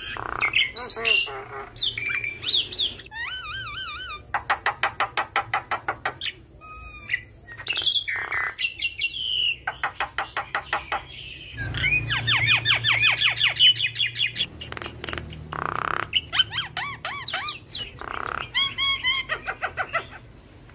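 Javan myna singing a long, varied song of whistles, wavering warbles and rapid clicking rattles, full of mimicked calls of other birds.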